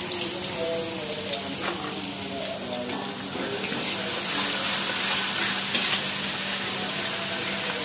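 Hot oil sizzling as corn fritters deep-fry in a pan and vegetables stir-fry in a wok, with a spatula stirring through the wok and a few light ticks. The sizzle grows louder about three and a half seconds in.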